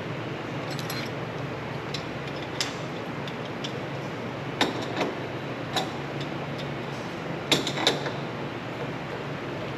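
Scattered metal clicks, knocks and clanks as a metal part and hand tools are handled and worked in a bench vise, with louder clanks about halfway through and two close together past the middle, over a steady low hum.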